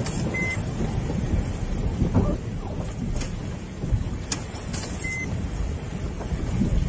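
Vehicle driving along a flooded track, a steady low rumble of engine and splashing water with a few faint knocks. Two short high beeps sound, one near the start and one about five seconds later.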